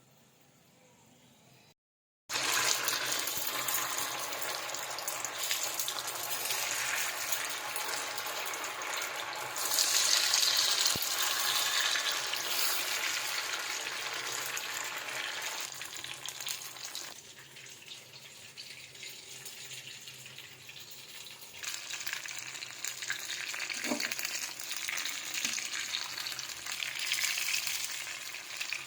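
Food frying and sizzling in hot oil, a steady hiss that starts suddenly about two seconds in, grows louder around ten seconds, then eases off for a few seconds before rising again.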